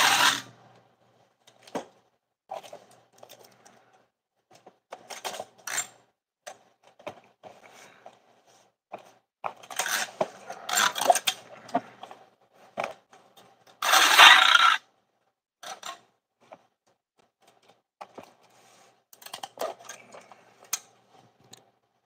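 Handling and taping a cardboard shipping box: scattered clicks, knocks and rustles from the box and a packing-tape gun, with one loud, brief rip of tape being pulled off the tape gun past the middle.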